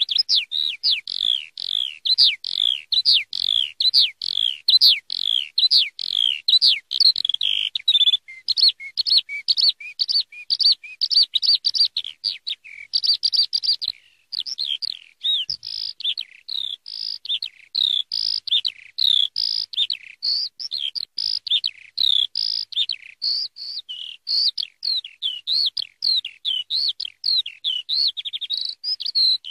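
Eurasian skylark singing: a long, almost unbroken stream of rapid, high chirps and trills, with one brief pause about halfway through.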